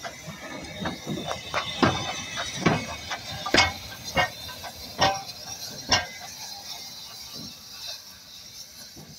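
Steam tank locomotive moving slowly, with irregular metallic clanks and knocks about once a second over a steady steam hiss; the clanks thin out after about six seconds as it draws away.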